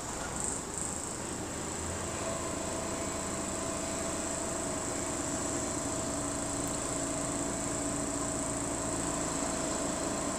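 A steady high-pitched buzz or trill. A lower, steady hum joins it about two seconds in and holds.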